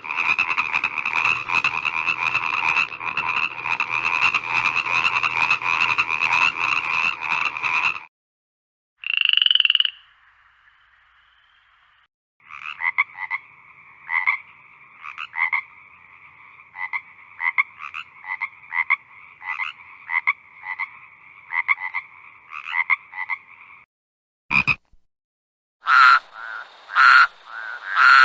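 Frogs croaking in a series of separate recordings: a dense, continuous chorus for about eight seconds, one loud call, then a long run of short repeated calls, and near the end loud calls about once a second.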